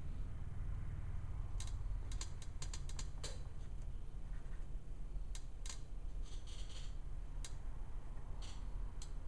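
Pen writing and tapping on a paper scoresheet: a scatter of small irregular clicks, with a quick run of them about two seconds in and short scratchy strokes, over a steady low room hum.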